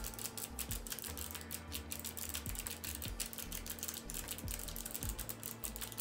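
Fast typing on a Gamdias Hermès M3 low-profile mechanical keyboard: a dense, irregular run of key clicks, over background music.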